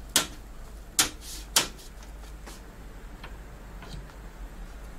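NZXT H7 Flow PC case's perforated front panel being pressed on and snapping into its clips. Three sharp, loud clicks come in the first two seconds, then two fainter ones.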